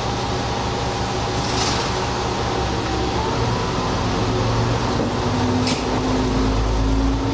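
Diesel railcar engine idling at a station stop, then revving up about five and a half seconds in as the train starts to pull away. Two short, sharp high sounds come about a second and a half in and just before the revving begins.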